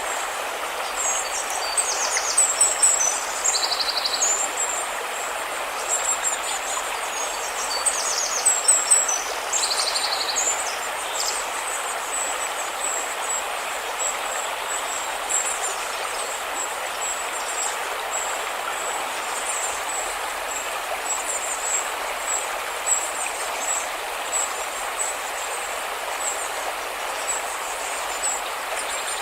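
River water rushing steadily, with birds chirping high above it, many calls in the first ten seconds or so and only scattered ones after.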